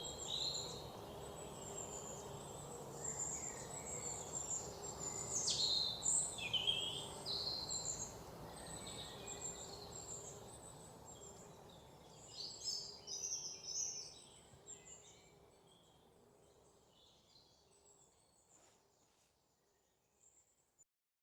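Birds chirping with many short calls over a low, steady outdoor background noise, fading out gradually toward the end.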